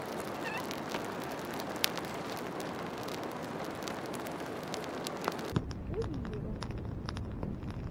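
Campfire of dry sticks burning, crackling with many small sharp pops, the strongest about two and five seconds in. One or two faint bird calls come over it, near the start and about six seconds in.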